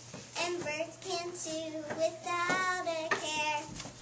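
Children singing together, a melody of held notes.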